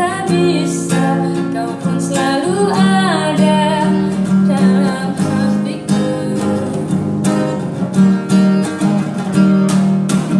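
Acoustic guitar strummed in a steady rhythm, with a voice singing a wavering melodic line over it a few seconds in.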